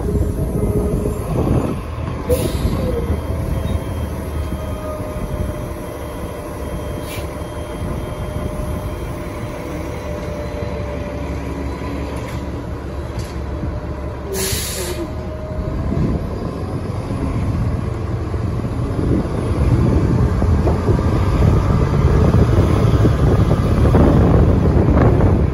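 Interior of a New Flyer XDE60 hybrid diesel-electric articulated bus under way: steady drive whine over low road rumble, with a few brief sharp clicks and rattles. The running noise grows louder over the last ten seconds.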